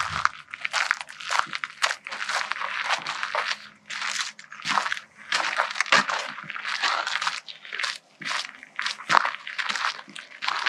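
Running footsteps crunching on a dirt and gravel road in quick, repeated steps.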